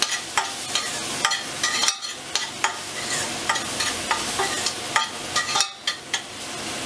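Chopped onion sizzling in hot oil in a stainless steel pot, stirred with a metal spoon that scrapes and clicks against the pot's bottom and sides.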